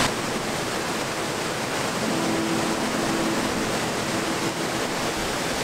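Waterfall's falling water making a steady, even rush.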